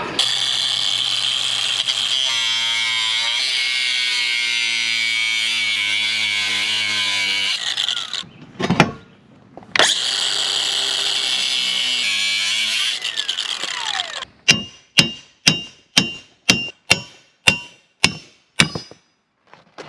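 Angle grinder cutting and grinding steel on a golf-cart front axle: a long run of about eight seconds, a short stop, then a second run of about three seconds that winds down with a falling whine. It is followed by about ten sharp ringing knocks on metal, roughly two a second.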